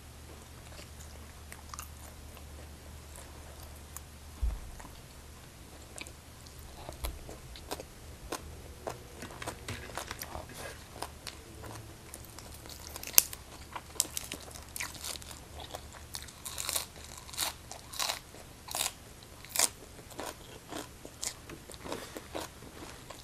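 Close-miked chewing, quiet at first, then loud crisp crunches about once or twice a second from about halfway through as raw choy sum stalks are bitten and chewed along with green papaya salad.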